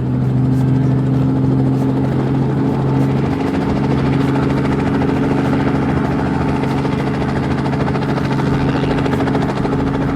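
Helicopter engine and rotor running steadily after start-up: a continuous low hum with a rushing sound over it.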